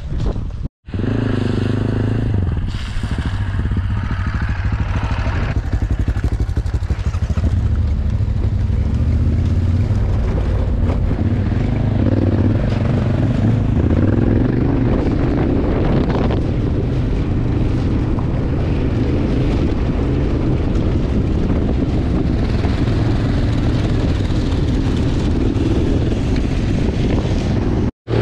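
Off-road motorcycle engine running under way on a rough dirt track, heard from on board, steady with small rises and falls of the throttle. The sound breaks off very briefly about a second in and again near the end.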